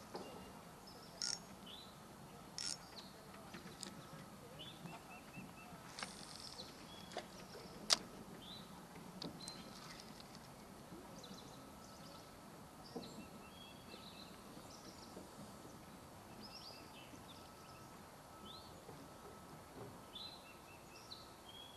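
Small birds chirping and calling on and off, short high chirps and quick runs of notes, over a faint steady high tone. A few sharp clicks cut through, the loudest about eight seconds in.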